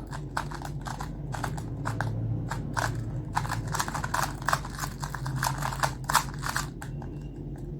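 Plastic 2x2 Rubik's cube being scrambled: rapid, irregular clicking and rattling of the layers as they are twisted, stopping about a second before the end.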